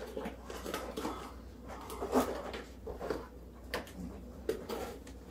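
Metal measuring cup scooping packed brown sugar from a plastic storage container: scattered light clicks and knocks of metal against plastic, with soft scraping and rustling of the sugar.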